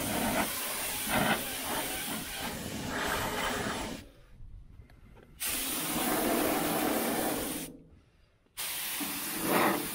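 Harbor Freight air spray gun spraying primer in three passes, a steady hiss of air and paint that stops between trigger pulls: the first ends about four seconds in, the second lasts about two seconds, the third a little over one.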